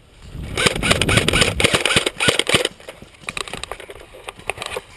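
Airsoft guns firing: a dense run of rapid shots lasting about two seconds, then scattered lighter shots near the end.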